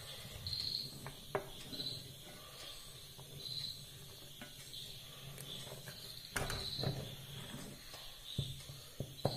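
Wooden spatula stirring thick jackfruit payasam in a steel pot, knocking and scraping against the pot now and then, loudest a little after six seconds in and twice near the end. A high chirp repeats about once a second behind it.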